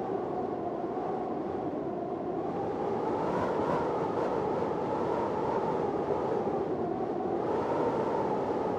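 Storm wind blowing steadily and hard, with a hollow tone in it that slowly rises and falls in pitch.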